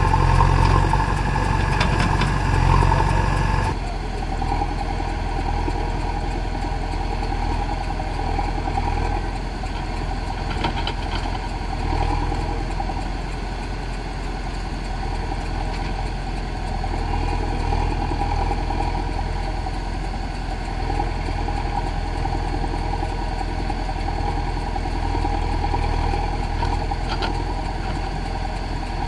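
Heavy diesel engine running steadily. The sound shifts abruptly about four seconds in, then carries on steadily.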